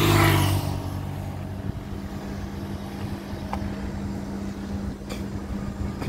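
A motorcycle passes close by, loudest in the first moment and fading away within about a second, its engine note dying down under the road noise. A steady low hum carries on afterwards, with a couple of faint clicks.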